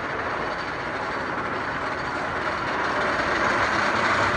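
Wooden roller coaster train running along its track, a steady noise that grows louder in the second half and then drops off abruptly.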